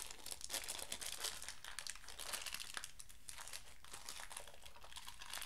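Crinkly toy packaging rustling and crackling as hands pick and pull at it, trying to open it by a tear strip that won't give.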